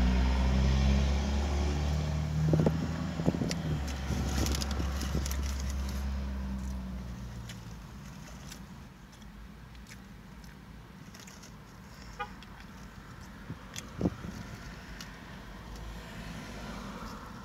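A motor vehicle's engine running with a low, steady hum that fades away over the first several seconds. Quieter chewing and short clicks from handling a sandwich follow, with one sharper click near the end.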